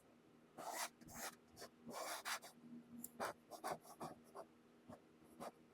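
A 2-inch painting knife scraping and pressing oil paint onto a canvas: a faint, irregular series of short scrapes and rubs, roughly a dozen strokes.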